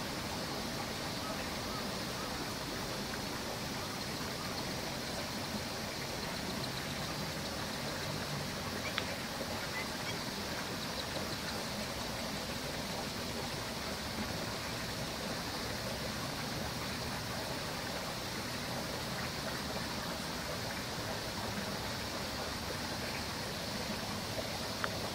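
Steady rushing outdoor background noise, with a few faint, short high notes about nine seconds in and again near the end; no clear series of calls.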